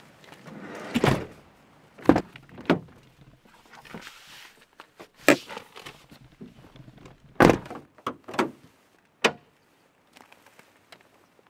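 A panel van's sliding side door rolling shut and slamming about a second in, followed by a series of sharp clunks and thuds from van doors and the bonnet catch as the bonnet is released and lifted.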